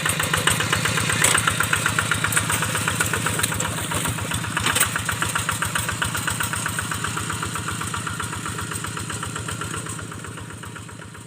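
Hand tractor's diesel engine running steadily with even, rapid firing pulses, slowly fading toward the end.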